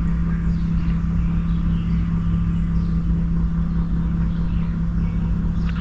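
A steady low rumble with a constant low hum that does not change.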